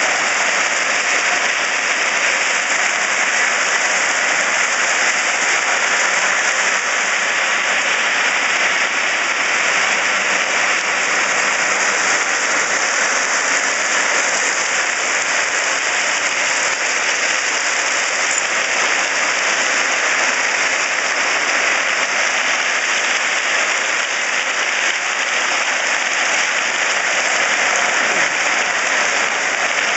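Crushed-rock ballast pouring from a railroad ballast hopper car and being pushed along by its plow blade: a steady, dense hiss of stones.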